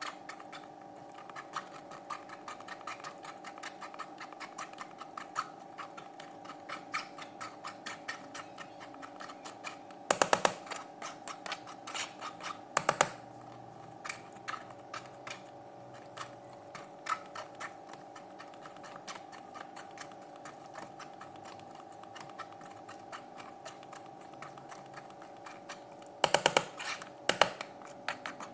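Quick scraping and clicking as blended pineapple and red guava pulp is worked through a sieve into a plastic jug, with two louder bursts of scraping, about ten seconds in and near the end. A steady hum runs underneath.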